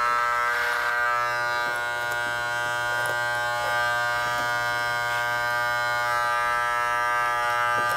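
Wahl electric hair clippers running with a steady buzz while cutting a mannequin's hair.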